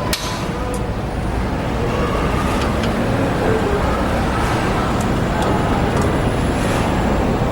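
Steady vehicle noise with a few faint clicks.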